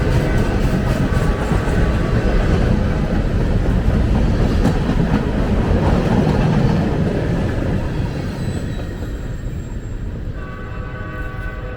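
Local CSX freight train rolling past, a steady heavy rumble that grows quieter over the last few seconds as the train moves away.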